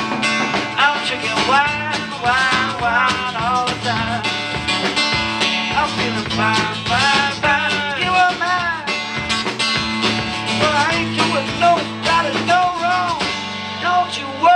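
Live blues played on acoustic guitar and drum kit, an upbeat instrumental stretch with bending lead notes over a steady groove.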